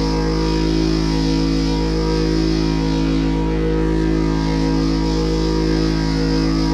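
Music with guitar, a steady wash of sustained tones.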